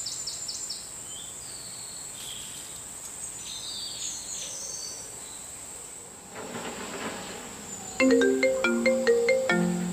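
Forest ambience of scattered bird calls over a steady high insect whine. About eight seconds in, a mobile phone ringtone starts playing a melody of short stepped notes: an incoming call ringing.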